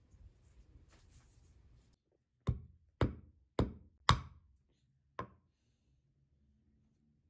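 Faint rustling of dried herbs, then a wooden pestle knocking on a wooden cutting board: four hard strikes about half a second apart and a lighter fifth a second later, crushing green olives to split them for pitting.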